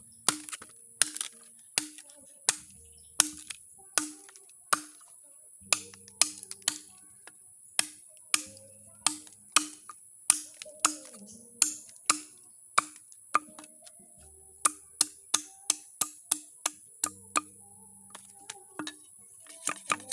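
A bolo knife striking a green bamboo tube over and over: sharp, hollow knocks about twice a second, quickening to about three a second in the second half.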